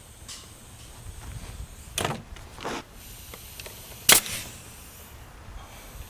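Sharp knocks on plywood workpieces: two close together about two seconds in, then a louder single one about four seconds in.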